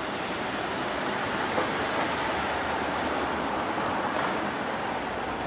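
Steady rushing noise of street traffic, with cars passing on the road.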